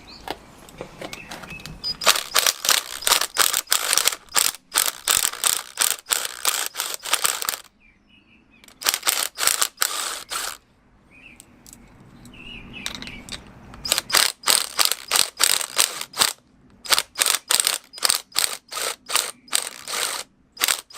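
Drill enlarging the bolt holes in a metal bonnet hinge bracket, running in four bursts of a few seconds each with rapid clicking chatter as the bit works the metal.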